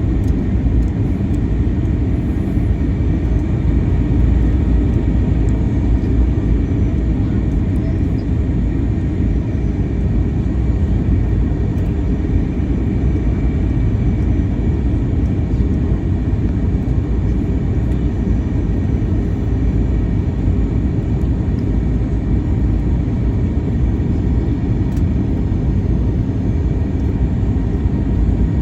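Steady rumble of an Airbus A321 airliner heard from inside the passenger cabin, with no sudden changes.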